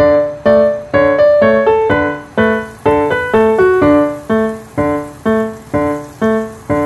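Background music: a light keyboard melody of single notes, struck about twice a second, each one ringing and fading before the next.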